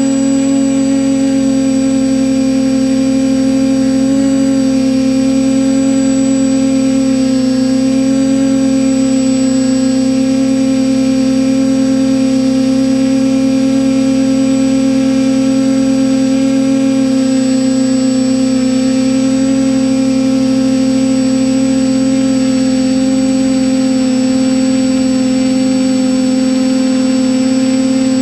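TBS Discovery Pro quadcopter's electric motors and propellers running at a steady pitch, heard up close from the camera on its frame.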